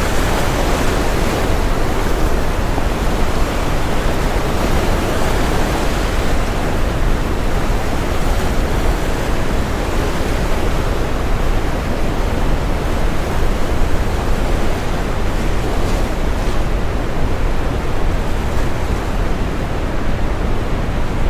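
Brown noise mixed with ocean waves breaking on a shore: a steady, deep rushing hiss with the surf swelling slightly now and then.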